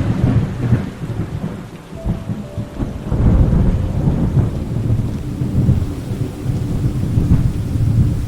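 Thunder rumbling over steady rain. A loud thunderclap comes right at the start and a second long swell of rumbling begins about three seconds in.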